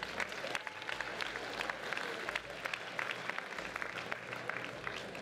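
A crowd of students applauding in a school gymnasium: many hands clapping at once, easing off a little near the end.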